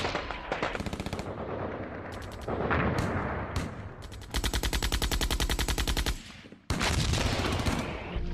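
Battle gunfire: scattered shots, then bursts of rapid machine-gun fire. The longest burst starts about four seconds in and runs for about two seconds, stops briefly, then another burst follows.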